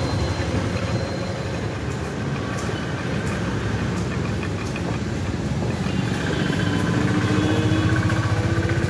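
Stationary belt-drive engine running steadily with an even low pulsing beat; a faint tone rises slightly over the last few seconds.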